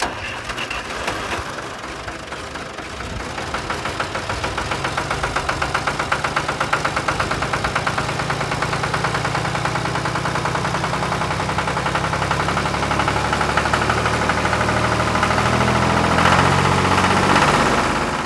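Small tractor engine chugging steadily with a fast, even knock, dipping a few seconds in and then growing a little louder.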